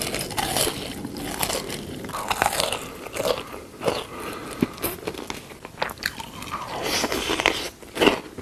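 Close-miked crunchy eating: a dense, irregular run of crisp bites and chewing.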